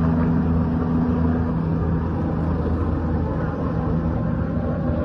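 Helicopter running with a steady low hum over a rushing noise.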